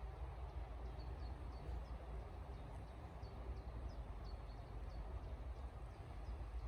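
A small bird repeating short, high chirps about every half second, over a low rumble of wind on the microphone.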